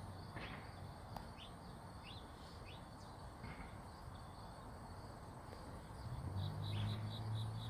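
Small wild birds chirping at a feeder: scattered short, high, downward chirps, then a quick run of short high notes near the end. A low steady hum comes in about six seconds in.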